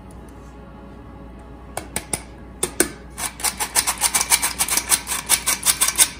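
Squeeze-handle stainless steel flour sifter being worked: a rapid run of metallic clicks, about six a second, as the handle is squeezed again and again and flour is pushed through the mesh. After a short lull, a few clicks come about two seconds in, and the steady clicking starts about three seconds in.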